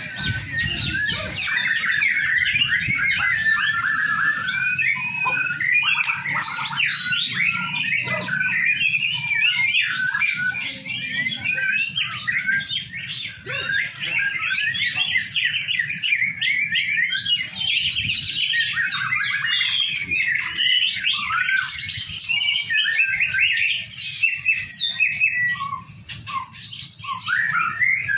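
Many caged songbirds, white-rumped shamas (murai batu) among them, singing and chirping at once in a dense, unbroken mix of quick whistles and chirps, over a faint low background hum.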